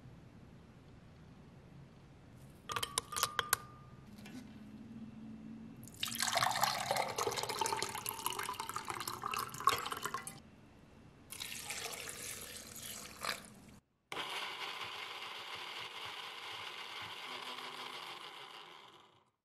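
A few clinks of walnut pieces dropped into a glass blender jug. Then water is poured from a plastic jug into a drinking glass for about four seconds, with a shorter pour after it. After a brief cut comes a steady, even whir of the blender running for about five seconds.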